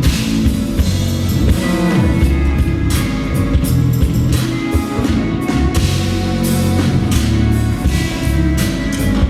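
Jazz-fusion band playing live: drum kit hitting hard over bass, guitar and keyboards, full and loud throughout.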